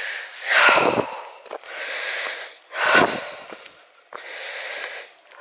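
A walker breathing hard close to the microphone: about five loud breaths in and out, each a rush of air.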